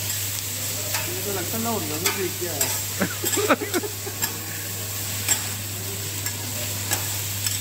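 Shredded cabbage sizzling on a flat steel griddle as two metal spatulas toss it, scraping and clacking against the hot plate in irregular sharp clicks.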